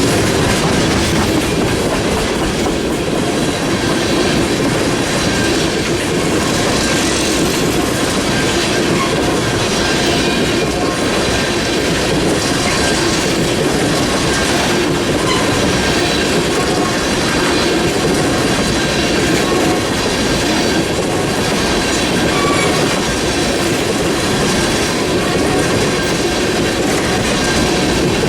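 Freight train cars rolling steadily past, with wheels clattering over the rail joints in a regular rhythm and some wheel squeal. These are the tank cars of an empty crude oil train.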